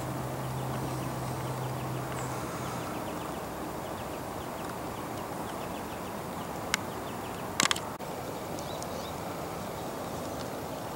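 Steady outdoor background noise with a low hum that stops about three seconds in and faint rapid ticking. Two sharp clicks about a second apart, around seven seconds in, are the loudest sounds.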